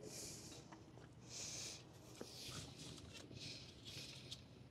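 A person breathing out through the nose in short puffs, about one a second, with a few faint clicks of hand tools.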